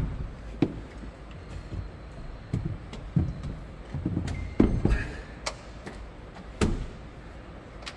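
Irregular knocks, clunks and heavy thuds of hands-on work on the camper, about eight in all, over a low steady rumble. The loudest thuds come together about four and a half to five seconds in.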